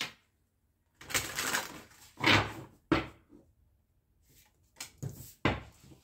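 A deck of tarot cards being shuffled and squared by hand on a table: a few short rustling, slapping bursts of card noise with sharp taps, starting about a second in and loudest about two seconds in.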